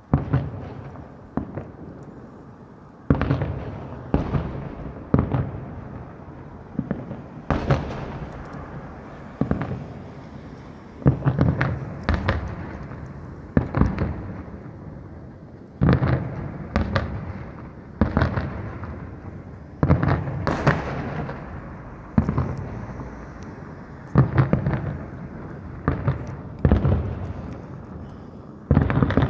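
Aerial fireworks shells bursting in a long series, a sharp bang every second or two, each trailing off in a rumble before the next.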